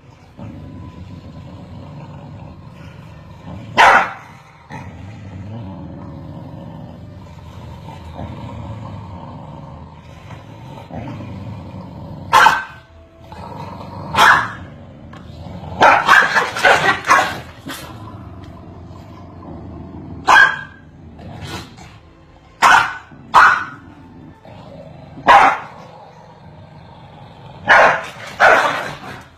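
Corgis barking at each other: sharp, loud barks, singly or in quick runs every few seconds, with a burst of rapid barks around the middle. A low steady rumble fills the gaps between them.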